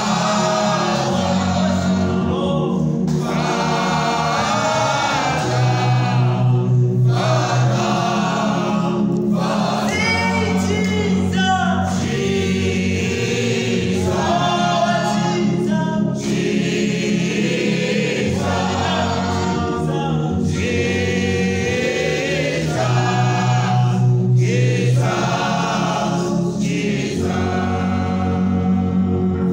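Gospel choir singing with an accompaniment of low held bass notes that change every couple of seconds.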